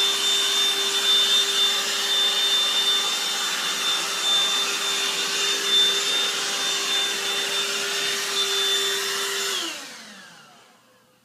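Black & Decker DustBuster 14.4 V cordless handheld vacuum running steadily with a high motor whine over its airflow rush. Near the end it is switched off and winds down, its pitch falling as it fades out.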